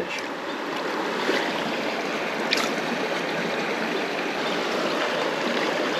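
Small creek running steadily, its water rushing over rocks, with a faint click about two and a half seconds in.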